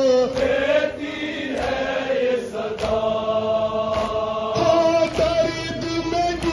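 Men's voices chanting a nowha, a Shia mourning lament, in long held melodic notes, with a few sharp thuds scattered through it.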